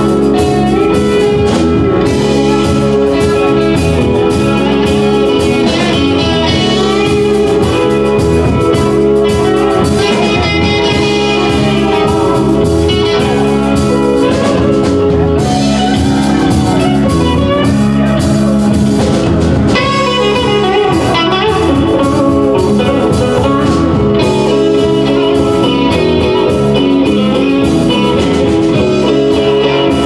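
Live band playing an instrumental passage on electric guitars, electric bass and drum kit, with a guitar line over the top.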